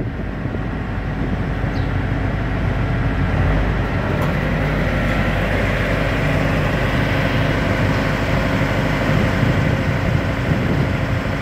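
A heavy engine running steadily, a low even drone with a noisy wash over it.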